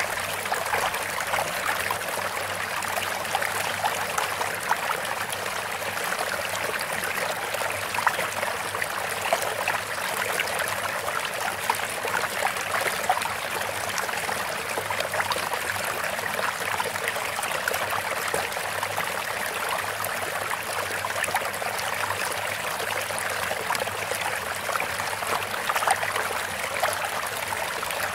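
Steady sound of running water, like a babbling stream, made of many small splashes and trickles, thin with no low rumble.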